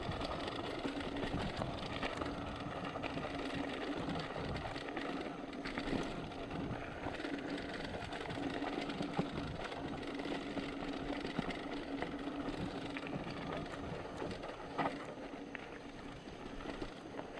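Mountain bike rolling fast downhill on a gravel road: steady tyre noise with a steady buzz.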